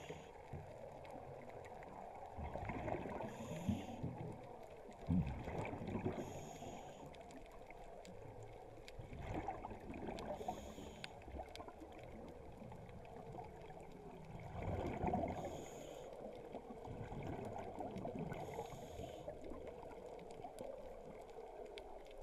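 Underwater sound through a camera housing: a scuba diver breathing through a regulator, a short hiss on each inhale about every three to four seconds, with the bubbles of each exhale gurgling and rumbling in between.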